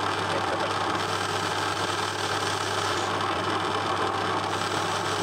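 Metal lathe running steadily with a low hum as a carbide-insert tool turns a mild steel bar, taking a millimetre off its diameter.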